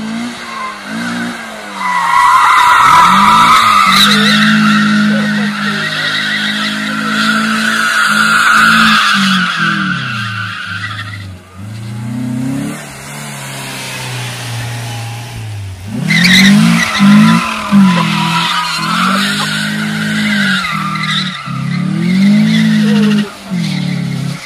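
FSO Polonez with a 1.4 16-valve engine revving up and down while its tyres squeal in long skids on concrete. There are two long bouts of squealing with the engine working hard, and a calmer stretch of engine revving between them.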